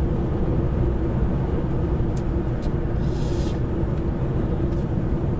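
Semi-truck running at road speed, heard inside the cab: a steady low engine and road drone with a constant hum. A short hiss comes about three seconds in.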